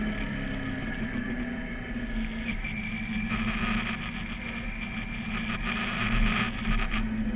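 Sport motorcycle engine running at steady revs while riding, heard from on board the bike, with a hiss that grows louder from about three seconds in.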